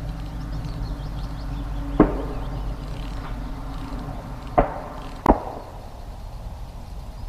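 Three sharp knocks, the last one ringing briefly, over a steady low background rumble.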